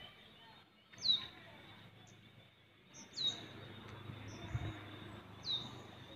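A bird repeats a short, high, downward-sweeping whistled call three times, about every two seconds, over faint outdoor background noise.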